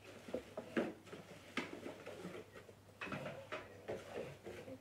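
Cardboard packaging being handled: a few sharp taps and knocks about one and one and a half seconds in, then cardboard scraping and rustling as a flap and insert are pulled out of a box.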